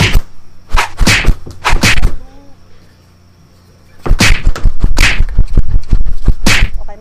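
Short, sharp whooshing sound-effect bursts, several in quick succession. A lull comes about halfway through, then a dense run of them from about four seconds in.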